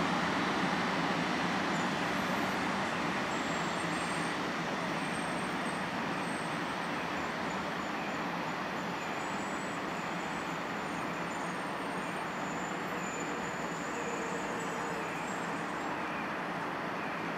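A 500 Series Shinkansen train rolling slowly into a station, a steady rumble of wheels and running gear that eases off gradually as it slows. Faint thin high tones come and go in the middle.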